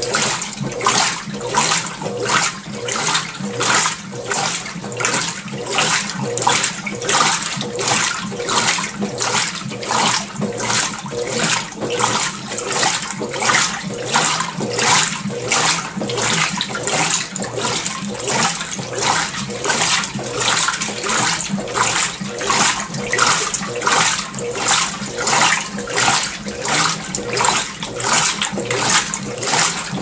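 Consul CWL16AB 16 kg top-load washing machine agitating its rinse water: the agitator churns clothes and water back and forth, making even sloshing surges about one and a half times a second, with a faint steady hum underneath.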